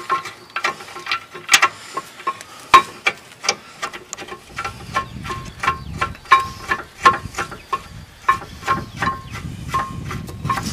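Short metallic clinks, about two a second and irregular, from a rear caliper bracket bolt and the steel around it while the bolt is turned in by hand on a brake assembly. A low hum joins about four and a half seconds in.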